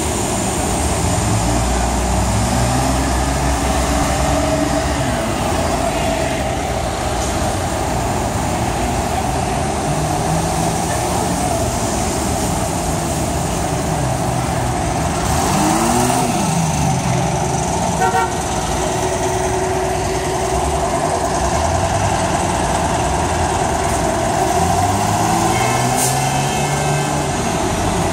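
Diesel engines of retired Flxible and Orion I transit buses pulling away and passing close by, revving up and falling back repeatedly as they move off through their gears, over steady city traffic noise. A short horn toot sounds near the end.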